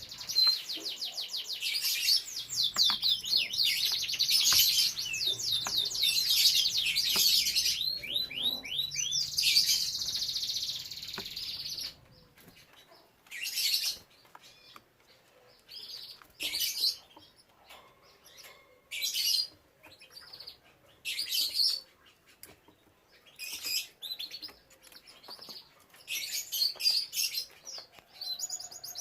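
Domestic canary singing: a long, continuous run of fast trills for about twelve seconds, then short bursts of song every second or two.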